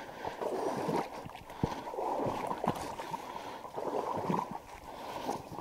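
Water sloshing and splashing in irregular swells, with a few short knocks.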